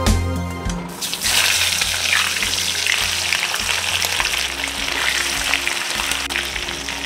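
Marinated rohu fish pieces sizzling and crackling in hot oil as they fry. The sizzle starts suddenly about a second in and keeps up a steady crackle, over soft background music.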